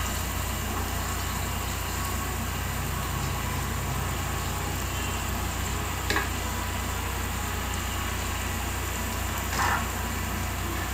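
Steady low hiss and hum of the onion-tomato masala cooking in an aluminium pot on the stove, with two faint light knocks, about six seconds in and again near the end, as herbs are tipped in from a plastic container.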